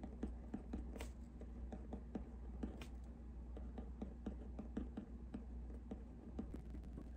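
Pen writing on a paper card lying on a hard table: faint, irregular scratchy strokes and little taps of the pen tip, a few each second, over a steady low hum.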